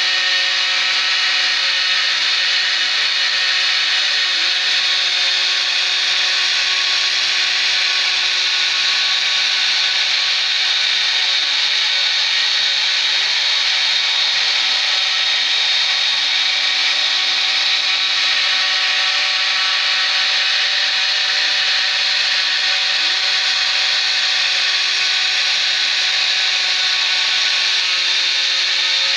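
A 775 DC spindle motor on a homemade CNC router running with a steady high-pitched whine, its small bit cutting a circular groove into wood.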